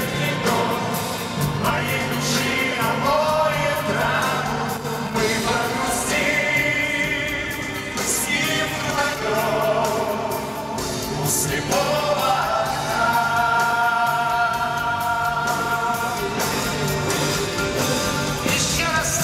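Male vocal choir singing a wordless passage in a live song performance: long held notes over a steady bass line.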